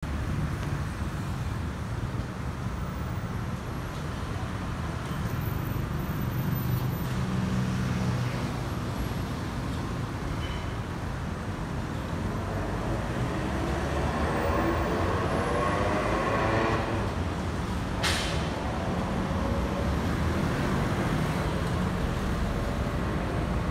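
Boeing 737-800's CFM56-7B jet engines passing overhead at climb power, a steady distant rumble. It swells in the second half, with sweeping, wavering tones for several seconds. One sharp click about three quarters of the way in.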